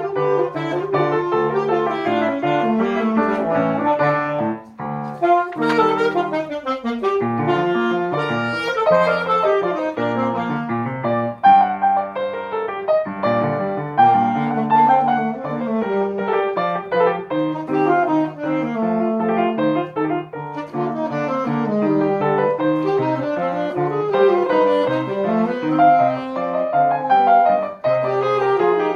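Grand piano played four hands, two players on one keyboard: dense chords and running notes, with a brief break about four and a half seconds in.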